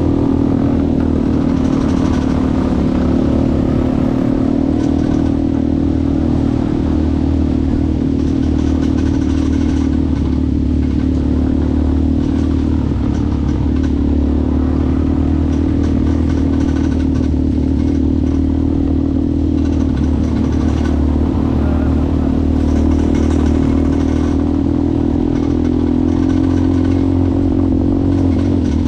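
ATV engine running at a steady pitch with no revving, with a constant low drone underneath.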